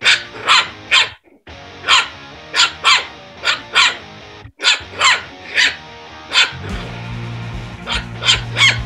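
Small puppy yapping: a quick run of about fifteen short, high-pitched barks with brief gaps between groups, over background music.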